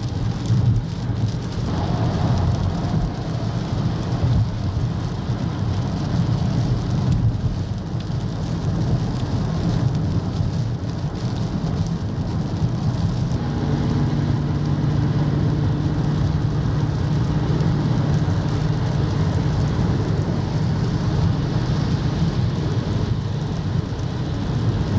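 Heavy rain falling on a moving car's windshield and body, heard from inside the car over steady tyre and road rumble on the wet highway. A low steady hum comes in about halfway through.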